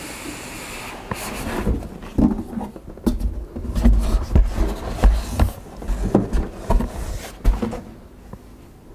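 Cardboard boxes being handled: a retail box scraping as it slides out of a cardboard shipping carton, then a run of knocks and thumps as the boxes are shifted and set down on a desk, dying away near the end.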